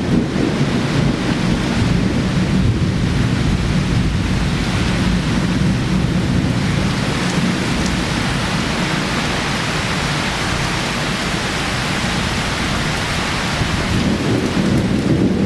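Torrential cloudburst rain pouring down hard and steadily, with a deep rumble underneath.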